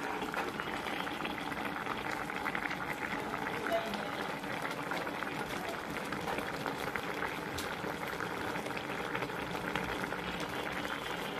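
Saucepan of vegetable stew at a steady boil on an electric coil stove, a continuous fine bubbling crackle.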